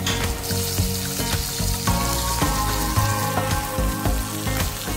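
Whole flour-coated yellowback sea bream sizzling as it pan-fries in oil in a frying pan, with background music over it.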